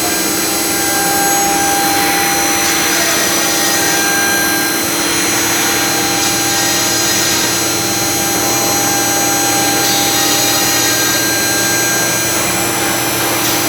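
CNC router with an automatic tool-change spindle running: a loud, steady machine whine made of several fixed high tones over a constant hum. A hiss swells for about a second every three to four seconds.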